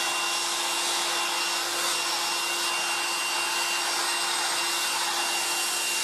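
Black & Decker SW105 Stowaway 1000 travel hairdryer running steadily with its air concentrator nozzle fitted: a rush of blown air with a steady motor hum and a thin high whine.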